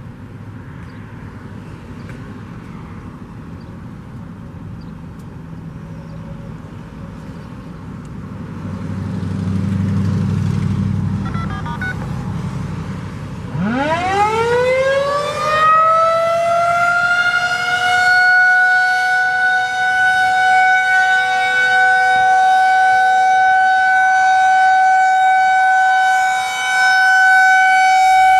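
Federal Signal 2001-SRNB electromechanical warning siren starting up about halfway through: its pitch winds up from low to a high steady tone within about four seconds, then holds that one tone as a steady alert signal during a routine test. Its loudness dips briefly once near the end.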